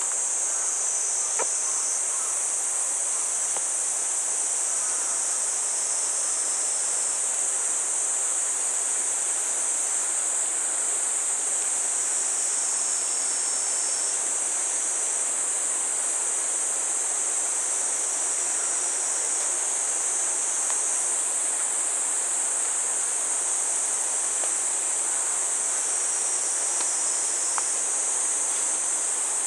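A steady, high-pitched chorus of insects shrilling without a break, over a soft background hiss with a few faint clicks.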